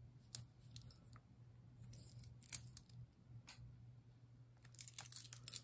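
Metal link bracelet of a Bulova wristwatch clicking as it is turned over in the hand: scattered small metallic clicks, the sharpest about a third of a second in and a quicker run near the end, over a steady low hum.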